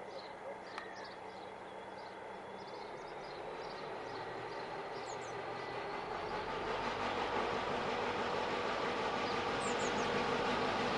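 Diesel locomotive hauling a passenger train as it approaches, its engine running and the sound growing steadily louder as it nears. Birds chirp in the first few seconds.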